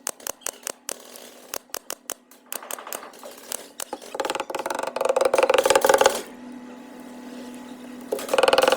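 Scattered sharp clicks and taps, then a small machine running in a fast rattling run for about two seconds. A steady low hum follows, and a second rattling run starts near the end.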